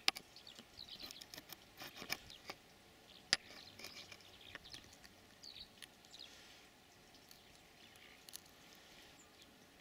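A few light clicks and taps in the first three or four seconds as a small pane of low-E glass is held and shifted in front of the camera, the sharpest about three seconds in, over a faint, steady outdoor background.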